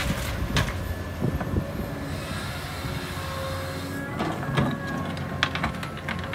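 Caterpillar 323D hydraulic excavator's diesel engine running steadily with a steady whine over it while the machine swings its empty bucket back to the dirt pile. Scattered metallic clanks come from the bucket and arm, a few around four to six seconds in.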